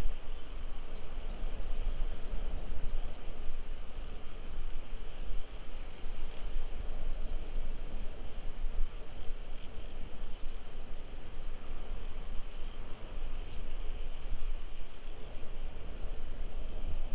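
Steady outdoor ambience: a continuous low rumble and hiss, with faint scattered high chirps of insects or birds.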